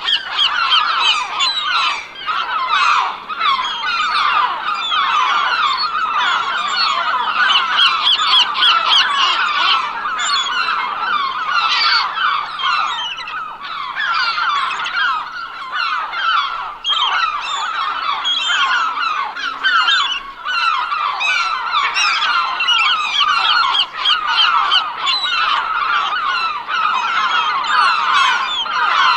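A large flock of gulls calling all at once, a dense unbroken chorus of many short overlapping cries.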